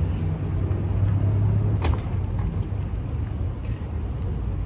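Steady low engine rumble of a motor vehicle running close by, with one sharp click about two seconds in.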